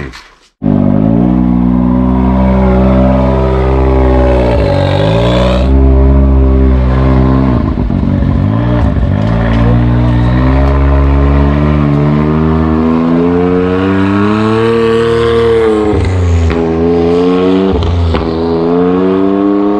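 ATV engine running hard as it is ridden, its pitch rising and falling repeatedly with the throttle. It starts abruptly about half a second in.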